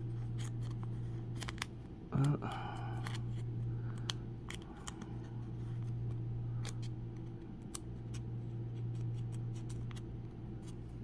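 Crinkling plastic and scattered sharp clicks as a trading card is slid out of its soft plastic sleeve and rigid plastic toploader, over a steady low hum.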